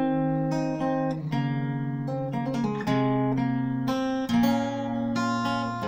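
Solo acoustic guitar played fingerstyle: an Irish traditional tune picked as a melody over held bass notes, each note ringing on into the next.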